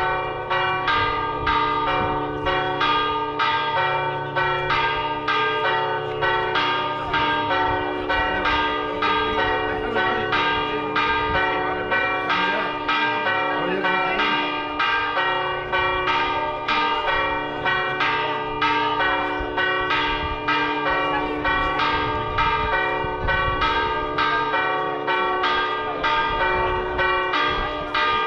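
Church bells pealing rapidly and evenly, about three strikes a second, their tones ringing on and overlapping.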